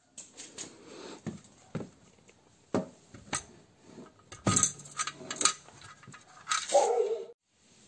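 Metal clinks and knocks of hand tools and brake parts being handled, a series of sharp irregular taps with a short squeak near the end, cut off abruptly.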